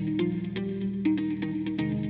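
Background music: an electric guitar track with effects, playing a steady rhythm.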